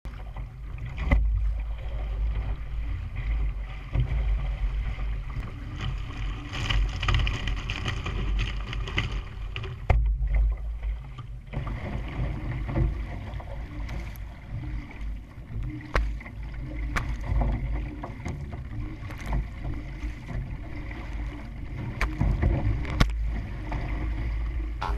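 Water splashing and sloshing along the hull of a one-person outrigger canoe paddled through choppy water, with wind buffeting the canoe-mounted camera's microphone as a heavy, uneven rumble. A few sharp knocks stand out, about a second in, near ten seconds and later on.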